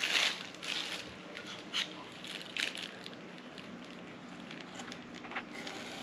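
Clear plastic bag crinkling as it is handled around a shift knob, with several sharp rustles in the first three seconds, then fainter.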